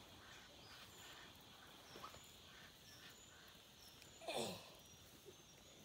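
Frogs calling faintly in a scattered chorus. About four seconds in, one louder call falls quickly in pitch.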